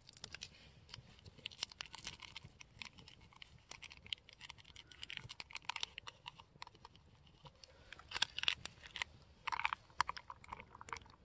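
Gear being handled: irregular crinkling and small clicks, thickest about eight to ten seconds in.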